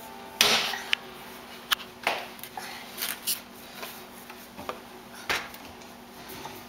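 Irregular knocks and clatters from a wooden kitchen cabinet door and the pots stored inside as a toddler pushes at the door and moves about in the cupboard. The loudest bang comes about half a second in, followed by scattered lighter knocks.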